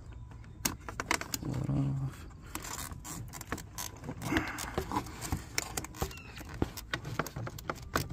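Plastic electrical connectors on a car door panel's wiring harness being worked loose by hand: a run of irregular sharp clicks and rattles.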